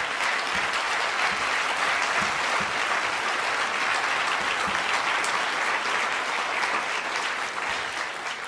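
Audience applauding: a large crowd clapping steadily and evenly.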